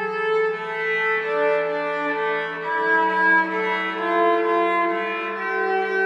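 Several cello parts bowed together in harmony, as slow held notes that change pitch every second or two.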